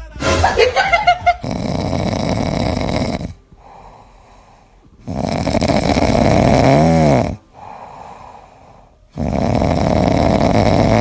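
A pet snoring loudly: three long, rasping snores about four seconds apart, with quieter breaths between them. The middle snore has a whistling note that dips and rises. A brief burst of sharp noises comes at the very start.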